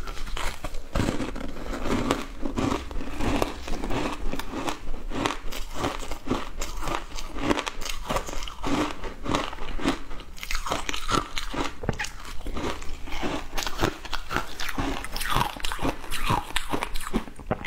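Biting and chewing a block of frozen shaved ice coated in milk powder: dense, irregular crunching as the ice cracks and is ground between the teeth.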